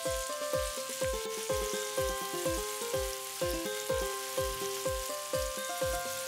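Diced elephant yam shallow-frying in hot oil in a pan with a steady sizzle, under louder background music with a steady beat of about two low drum hits a second.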